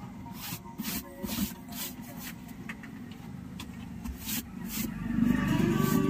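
Crunching and rustling of dry fallen leaves underfoot, a series of short crisp steps. About five seconds in, a louder low rumble swells up.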